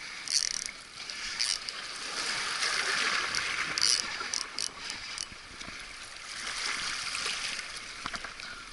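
Sea waves washing and splashing against jetty rocks, swelling twice, with several short sharp splashy bursts.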